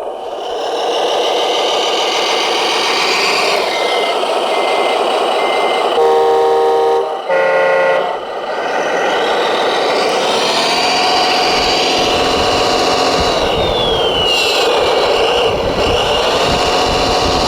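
Radio-controlled model trucks and construction machines working: a steady motor and gear whine that rises and falls, a reversing beeper sounding a few seconds in, and two horn blasts about 6 and 7.5 seconds in.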